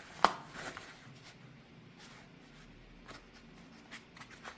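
Small keyboard accessories and their packaging being handled: a sharp click about a quarter second in, then light rustling and a few faint ticks.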